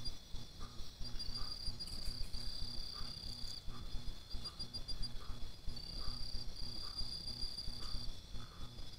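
Night insects chirring: a steady high shrill chorus with runs of fast trilled pulses that start and stop every second or two, over a low rumble. A softer, lower note repeats about every two-thirds of a second.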